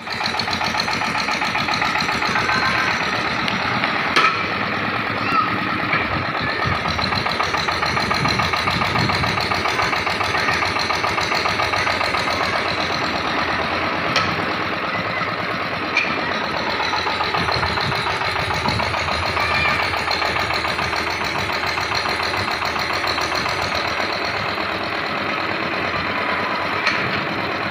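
Engine of a trailer-mounted borewell drilling rig running steadily with a fast, even pulse, with a few sharp metallic clinks.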